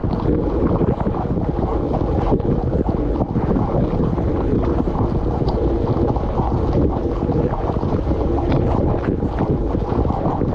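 Water spraying and splashing inside a running dishwasher, heard from inside the tub: a steady, dense rush with a few faint ticks.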